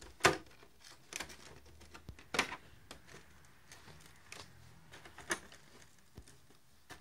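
A plastic RC car body shell being pressed down by hand onto its Velcro strips on the chassis: a handful of sharp plastic taps and clicks, the loudest about a third of a second in, with faint rustling between them.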